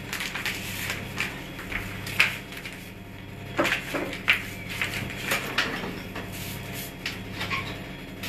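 Kitchen clatter: irregular light knocks, clicks and scrapes of dishes and utensils being handled on a worktop, over a low steady hum.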